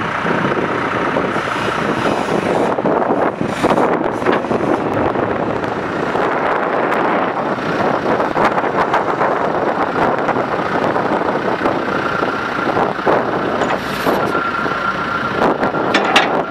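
John Deere 310SJ backhoe loader's diesel engine running, a loud steady mechanical noise. A thin steady whine joins about three-quarters of the way through.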